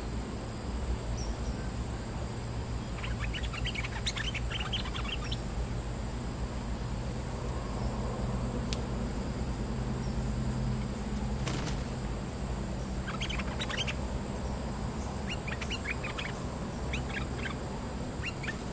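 A bulbul calling in four short bursts of rapid chattering notes, over a steady high whine and a low background rumble.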